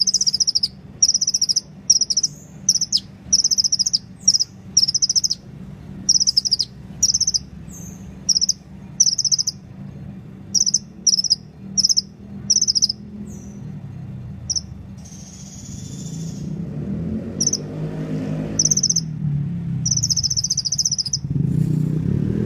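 A sunbird singing: a string of short, high, buzzy trills, roughly one a second, with one longer drawn-out note about halfway through. A low droning hum builds up in the last few seconds.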